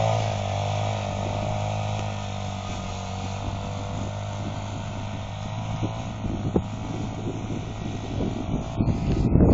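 Quad bike (ATV) engine running at a steady pitch as the machine drives away across snow, growing fainter with distance. Low wind buffeting on the microphone grows toward the end.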